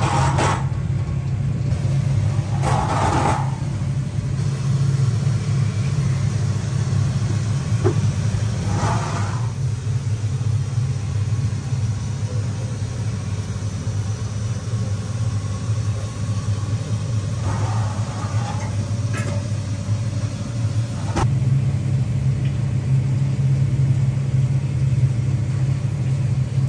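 Steady low mechanical rumble, like a large fan or motor running, with a few brief fainter sounds on top and a single click about 21 seconds in, after which the rumble is a little louder.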